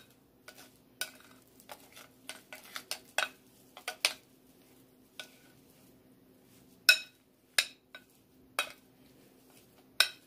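Metal spoon stirring a thick cream cheese, cheddar and bacon filling in a ceramic bowl, knocking and scraping against the bowl in irregular clinks, with a few louder clinks in the second half.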